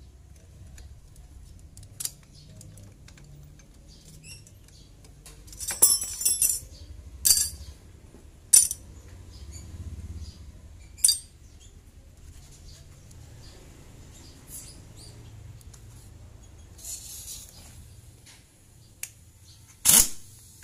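Metal tools clinking and knocking against a motorcycle's clutch assembly as it is taken apart: a handful of sharp metallic clinks spread out, the loudest near the end, over a faint low hum.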